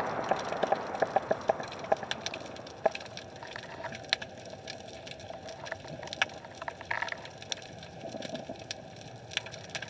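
Underwater sound picked up by a submerged camera: scattered sharp clicks and crackles over a faint hiss, with a quick run of about half a dozen clicks a second in the first two seconds.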